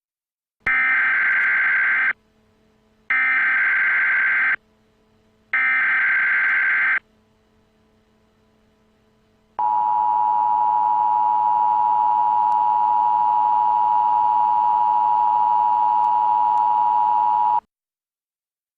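Emergency Alert System broadcast tones: three short bursts of buzzing SAME header data, each about a second and a half long, then the steady two-tone EAS attention signal for about eight seconds, which cuts off sharply. Together they mark the start of a new emergency alert, here a tornado warning.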